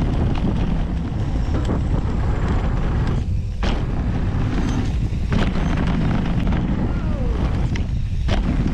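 Wind rumbling and buffeting on a mountain bike's handlebar-mounted camera microphone while riding, with scattered sharp knocks and rattles of the bike over the trail and bridge.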